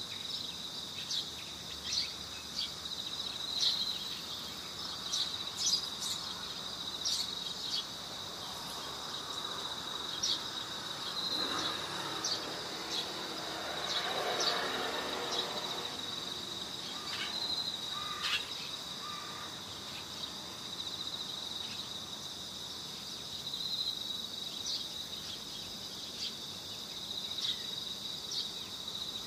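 Crickets chirring in a steady high-pitched drone, with scattered short high chirps and clicks. A soft rushing noise swells for a few seconds around the middle.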